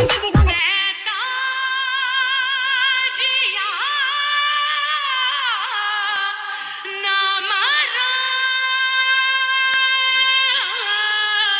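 Music: a heavy beat cuts out about half a second in, leaving a solo voice singing a slow melody with wavering, ornamented notes and no beat underneath.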